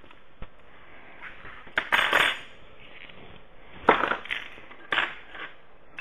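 Small metal hinge brackets and hand tools clinking and clattering as they are picked up and set down on a wooden workbench: a few separate clatters, the loudest about two and four seconds in.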